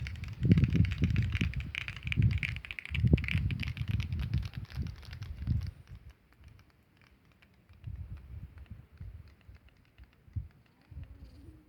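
Termites banging their heads against a leaf, heard as a dense, fast ticking like crackling: the head-drumming alarm signal of soldier termites. Low rumbling thumps sit under it in the first half, and the ticking grows fainter and sparser after about six seconds.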